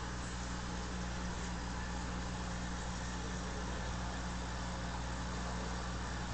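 Aquarium air pump running, giving a steady low hum, with the constant fizz of bubbles rising from an air-stone bar in the tank.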